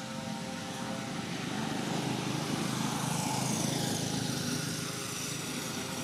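A passing engine, its noise swelling to a peak about halfway through and then fading.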